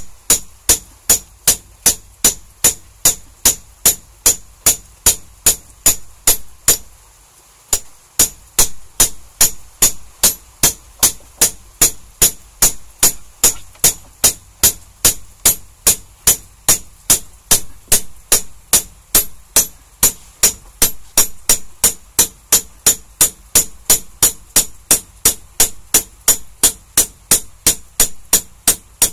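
Hammer beating a welding rod flat on a steel hammer-head anvil: steady metal-on-metal blows about three a second, each with a bright ring. The blows stop briefly about seven seconds in, then carry on at the same pace.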